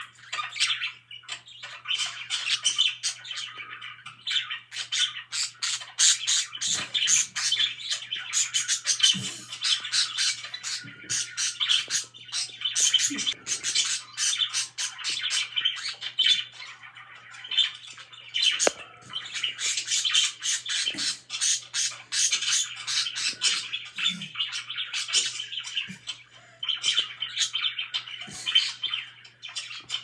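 Pet budgerigar warbling: a continuous, fast run of chirps, clicks and squawks with a few short lulls.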